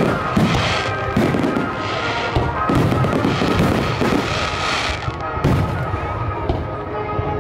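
Aerial fireworks shells bursting one after another, about one bang a second, with music playing underneath.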